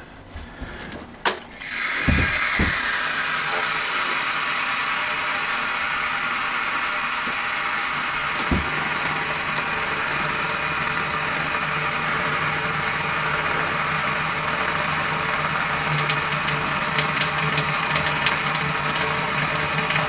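A sharp click, then water hissing steadily as a ceramic resistor on 230 V mains heats it at about 1.4 kW, with a low electrical hum underneath. Small crackles become more frequent near the end as the water nears the boil.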